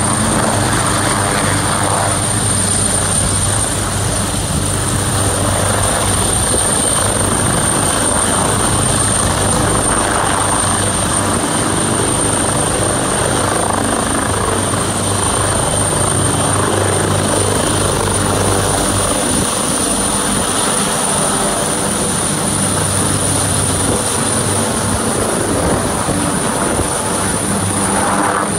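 AgustaWestland AW139 twin-turbine helicopter lifting off from a helipad and climbing overhead, its rotor noise steady under a constant high turbine whine.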